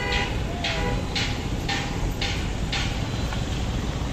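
Road traffic heard from a moving motorcycle: a steady engine and road rumble, a short vehicle horn honk at the very start, then five short hissing blasts in quick succession, about two a second.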